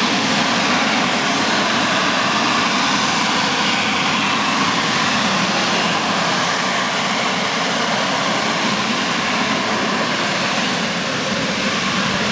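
AV-8B Harrier II's Pegasus turbofan engine running in slow, jet-borne flight and hover: a steady, loud jet noise.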